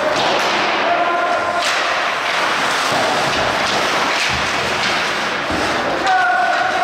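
Ice hockey game crowd noise: many voices at once, with brief shouts about a second in and again near the end, and a few thuds.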